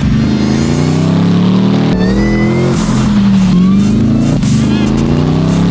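Supercharged LSA V8 of an HSV GTS with the Walkinshaw W507 upgrades and redesigned exhaust, revving hard under acceleration. The engine note climbs, drops sharply about two seconds in, then climbs and falls again.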